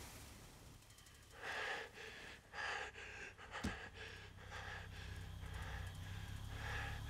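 A man breathing hard in short, quiet puffs, roughly one a second, over a low steady hum.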